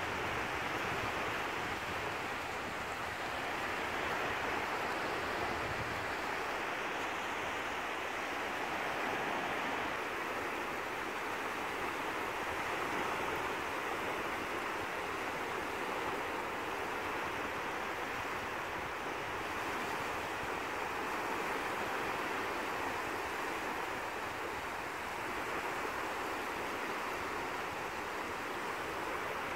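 Steady wash of small North Sea waves breaking on a flat sandy beach, gently swelling and easing. Some wind rumbles on the microphone for the first several seconds.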